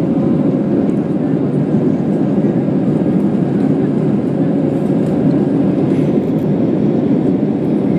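Steady, loud cabin noise of an Airbus A320-family airliner climbing out after takeoff: engine and airflow noise heard from inside the cabin.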